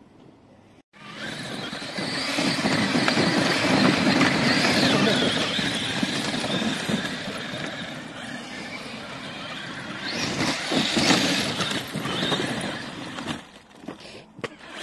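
Electric RC bash cars running hard in sand, motors and spinning tyres churning the sand. The sound starts suddenly about a second in, swells again around the eleven-second mark and thins out near the end.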